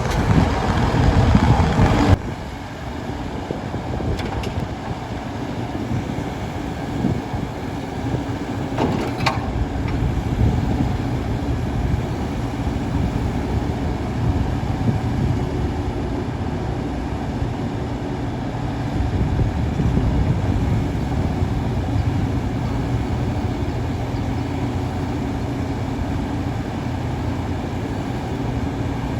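John Deere 135G excavator's diesel engine running steadily. It is louder for the first two seconds, then drops and holds even, with one short sharp knock about nine seconds in.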